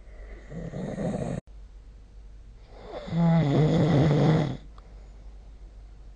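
A person snoring in their sleep: a shorter snore that cuts off abruptly, then a louder snore of about two seconds with a low buzz.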